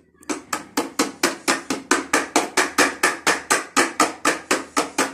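Rapid, evenly spaced hammering knocks, about four or five a second, from a child's plastic toy tool striking a plastic toy truck.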